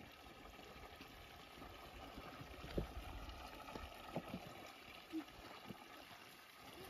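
Faint outdoor ambience of a shallow mountain stream trickling, with a few soft footsteps on stones.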